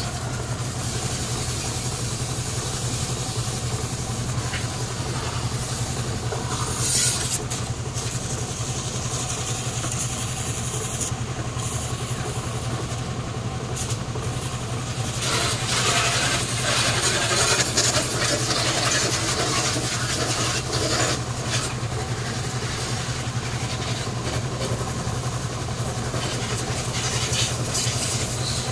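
A steady low motor hum runs throughout, with water from a hose spraying and splashing on a van, loudest for several seconds from about halfway through. A brief sharp knock comes about seven seconds in.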